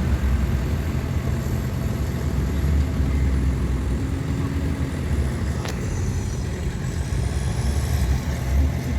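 Heavy diesel earth-moving machinery running steadily, a deep engine note, with a single sharp click a little past halfway.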